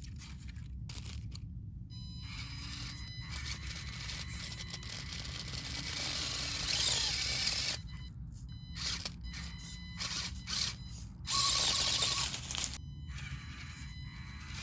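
SCX24 mini RC crawler's small electric motor and gears whining in stop-start bursts as it drives, its 3D-printed tires slipping for lack of grip. The whine swells loudest about six seconds in and again around eleven seconds.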